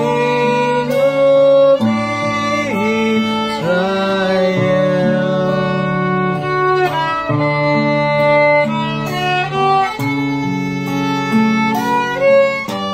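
A hymn played on violin over acoustic guitar chords. The violin carries the melody with a few sliding notes.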